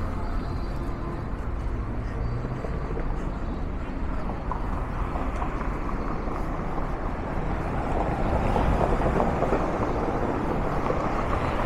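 City street traffic: a steady rumble and hiss of cars and other vehicles going by, swelling for a few seconds about two-thirds of the way through as traffic passes close.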